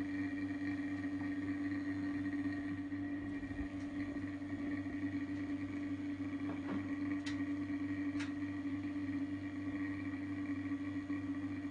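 A steady machine hum with a fixed pitch, with two short sharp clicks about a second apart past the middle.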